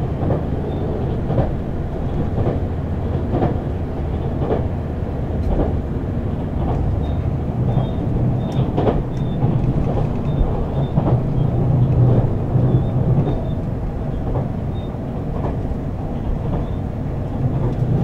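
Running sound of a JR Central HC85 hybrid diesel-electric train heard from on board at speed: a steady low rumble with sharp wheel clicks at irregular intervals, roughly once a second.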